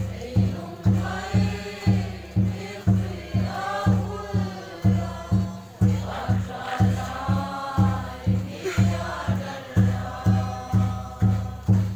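A group of people singing a hymn-like song together over a deep drum beaten steadily about twice a second.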